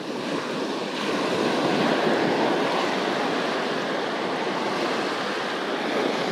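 Surf washing up the beach in a steady hiss of breaking waves, swelling about a second in.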